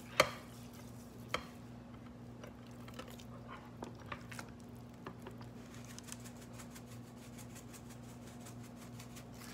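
Raw pork spare ribs being handled and turned over by hand in a glass baking dish: a sharp knock just after the start and another about a second later, then light taps and soft handling sounds over a steady low hum.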